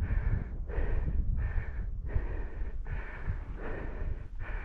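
A person breathing hard, in and out about every half second, with wind rumbling on the microphone.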